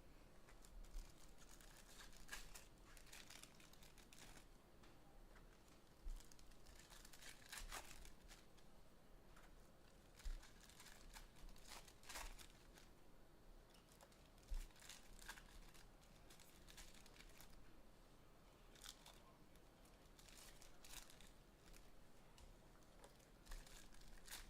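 Faint, intermittent tearing and crinkling of wrapping as a sealed box of 2023 Panini Prizm baseball cards is unwrapped and its packs are torn open, with a few sharper rips along the way.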